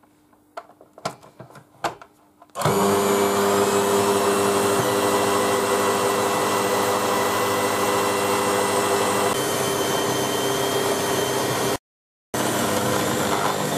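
A few light clicks and knocks, then about two and a half seconds in an electric stand mixer's motor starts and runs steadily with a loud hum and whine as its dough hooks knead flour, butter, egg yolks and milk into a crumbly dough. The sound cuts out for about half a second near the end.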